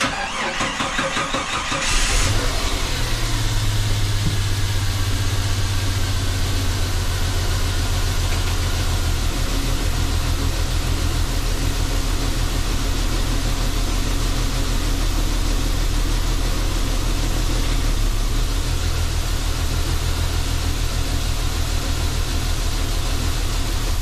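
Jeep Cherokee XJ engine cranking for about two seconds, catching, and then idling; the low idle note shifts slightly about nine seconds in and again near the end. The idle is rough, which the owner puts partly down to missing, broken and plugged vacuum lines.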